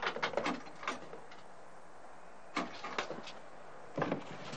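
Payphone handset hung up on its cradle, a quick clatter of clicks and knocks, followed by a few more knocks and clicks from the phone booth's door as it is pushed open about two and a half seconds and four seconds in.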